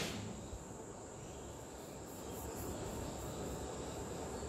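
A rag rubbing softly as it wipes spilled grease off the metal mating face of an inner CV joint cup, under a steady high-pitched whine and low workshop background noise.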